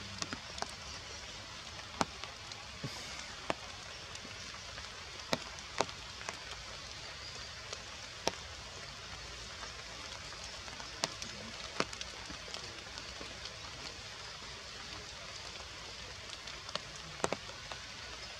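Steady rain falling on forest leaves, with scattered sharp drips landing close by at irregular intervals.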